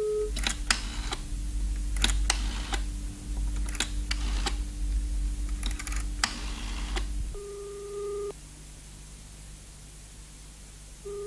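Telephone sounds: a steady dial tone cuts off just after the start, then clicks come in groups as a number is dialled. Two beeps of the ringing tone follow, one at about seven and a half seconds and another near the end, while the line rings.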